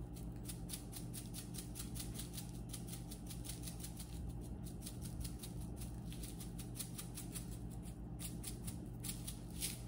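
Glass jar of everything-bagel seasoning being shaken over toast: a rapid, even rattle of seeds and flakes, several shakes a second, with a couple of short pauses.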